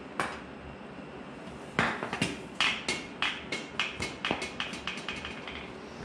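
Small metal parts clinking and tapping: one knock, then a run of ringing metallic clicks that come closer together and fainter, as loose exhaust hardware is handled and set down.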